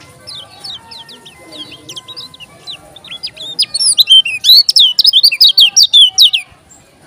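Caged white-eye, the 'kecial kuning' of Lombok, singing a fast string of sharp, high whistled notes. The notes start soft, grow loud and rapid about halfway through, then stop suddenly near the end.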